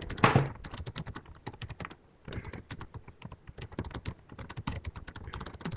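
Typing on a computer keyboard: quick, irregular keystrokes, several a second, with a brief pause about two seconds in.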